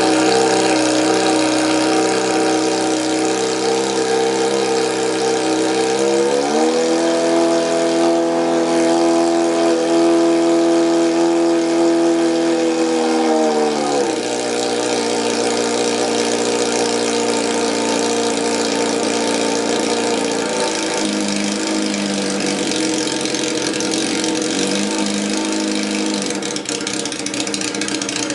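Honda CBX 750 F Indy's inline-four engine running through an open, unmuffled exhaust pipe. It idles, is revved up about six seconds in and held steady at raised revs for about seven seconds before dropping back to idle, then is raised again more mildly for a few seconds about twenty seconds in.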